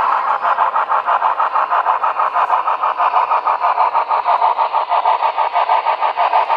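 Broadway Limited model of Union Pacific 844, a 4-8-4 steam locomotive, running past with its onboard sound system playing fast, even steam exhaust chuffs, about six a second.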